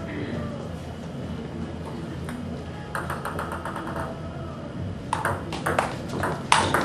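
Table tennis rally: the ball clicking sharply off the bats and the table in a quick, uneven series of ticks, starting about five seconds in and getting louder toward the end. A few softer ticks come about three seconds in.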